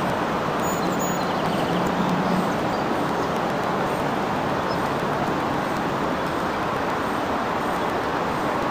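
Steady, even rush of distant road traffic.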